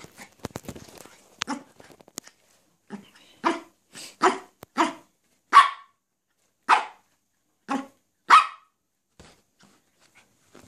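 Maltese dog barking, a run of about eight short barks spaced roughly a second or less apart, after a couple of seconds of rustling and clicking at the start.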